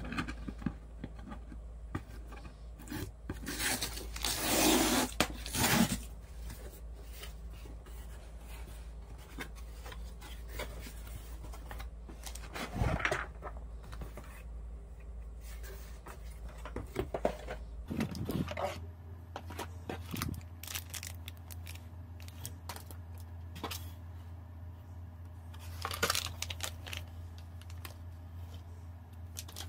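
Cardboard delivery box being opened by hand: packing tape torn off and the cardboard flaps scraping and rubbing, in a few short loud bursts, the biggest about four seconds in.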